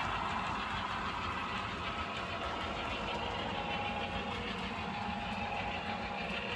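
Two model diesel locomotives, an Atlas RSD-5 and a Walthers SW-1, running their trains around the layout loops at the same time: a steady mechanical running sound with a few faint steady tones.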